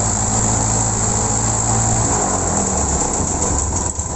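Engine of a Cessna 150M, a Continental O-200 four-cylinder air-cooled engine, running steadily with a brief shift in pitch about halfway through.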